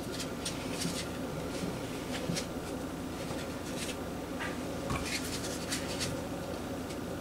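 Hands working floured dough on a plastic dumpling press on a countertop: a run of soft scratching and rubbing sounds, with a light knock about five seconds in, over a steady low hum.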